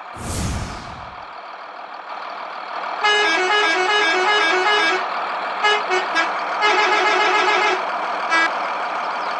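A quick whoosh at the start, then a musical vehicle horn toots a fast alternating two-note tune, followed by a few short blasts, one held note and a last short toot, over a steady engine-like hum.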